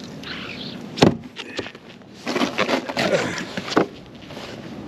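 Metal chain clanking as it is handled, with a sharp knock about a second in and a stretch of rattling and scraping around the middle.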